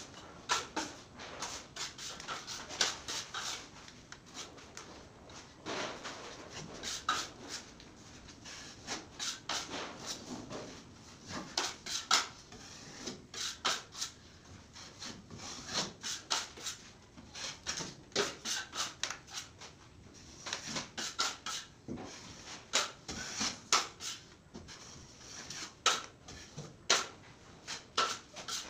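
Steel putty knife and trowel scraping and spreading joint compound (Boral) over mesh-taped joints of a hardiflex fibre-cement ceiling: a long run of short, sharp scraping strokes in quick clusters, with brief pauses between.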